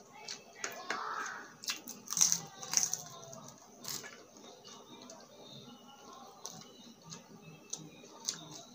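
Crispy fried egg chicharon chips being bitten and chewed close to the microphone, with a few loud crunches in the first four seconds, then quieter chewing with scattered clicks.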